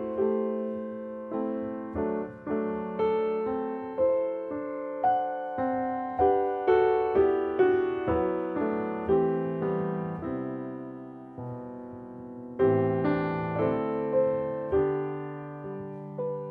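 Solo piano playing a gentle instrumental melody over chords, each note struck and then fading. It softens after the middle, and a stronger chord comes about three-quarters of the way through.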